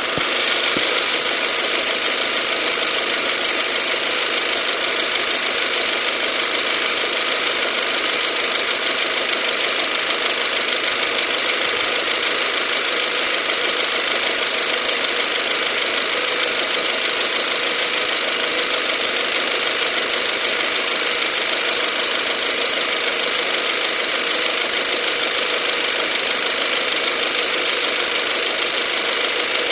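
Mk4 Golf GTI's turbocharged engine idling steadily, heard close up in the engine bay, with a loud, even hiss over the whole of it.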